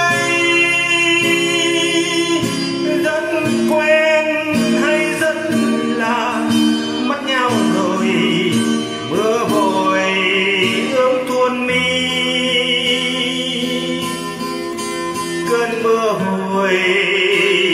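A song sung in Vietnamese to an acoustic guitar, the voice holding long, wavering notes.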